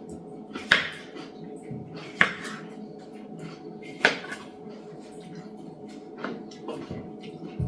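Kitchen clatter: sharp knocks of jars and utensils handled on a countertop, three loud ones about a second and a half apart in the first four seconds, then a few lighter taps, over a steady hum.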